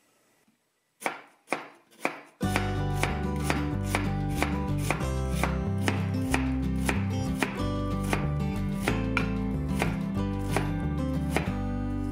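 Steel kitchen knife dicing an onion on a wooden cutting board: a few separate chops about a second in, then quick steady chopping at about three or four strokes a second. Background music with a strong bass line comes in about two seconds in and runs under the chopping.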